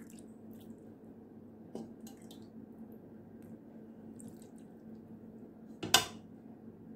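Metal ladle of stew sauce dripping and lightly clinking over an enamel pot, a few small scattered ticks, then one sharp knock near the end, the loudest sound.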